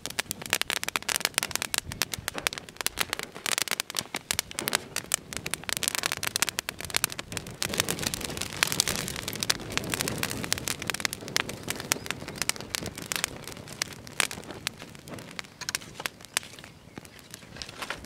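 A fresh fire of dry grass and dead conifer needles catching and crackling, a dense run of sharp pops and snaps that starts suddenly as the tinder lights and thins a little near the end.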